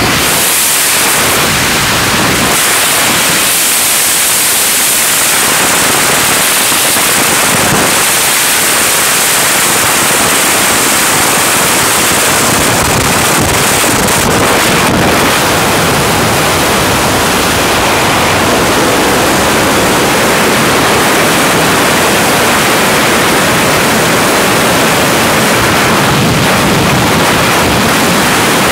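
Loud, steady wind rushing over a skydiving camera's microphone: slipstream outside the jump plane's door and then the wind of freefall.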